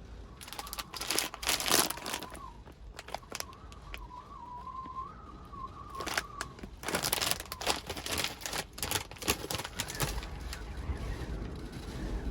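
Crinkling and rustling of packaging in two bouts of quick, sharp crackles, with a thin wavering whistle running under the first half.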